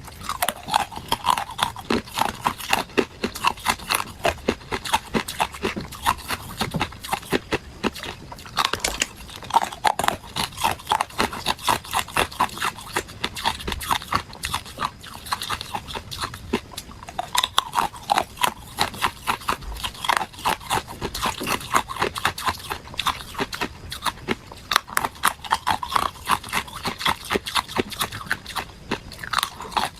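Hard ice cubes being bitten and chewed, a fast unbroken run of sharp crunches, several a second.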